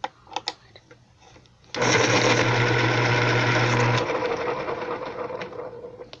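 X-Acto School Pro electric pencil sharpener: a few light clicks as a pencil goes into the slot, then about two seconds in the motor starts and the cutter grinds the pencil with a steady whirr. It cuts off abruptly about two seconds later as the pencil is pulled out, and what is left fades away over the next two seconds.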